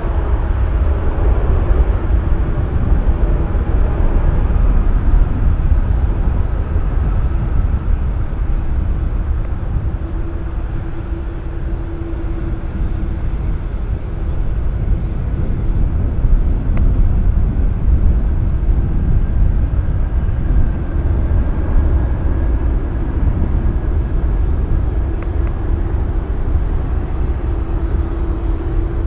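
Jet engines of a Qantas Airbus A380, four Rolls-Royce Trent 900 turbofans, running at departure power: a loud, steady jet rumble with a low hum in it that swells and eases slightly.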